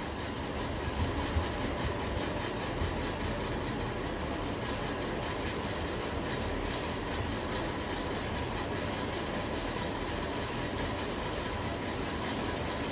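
Steady, even background noise with no clear source, with a few faint small sounds about a second in.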